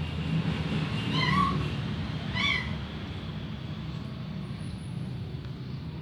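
Domestic cat meowing twice, two short calls about a second apart, over a steady low rumble.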